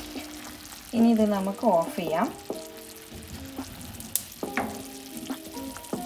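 Cardamom sugar syrup bubbling and sizzling in a pan around fried bread gulab jamun balls as it simmers, with a wooden spoon stirring. Background music plays over it, loudest with a sung phrase about a second in, then held notes.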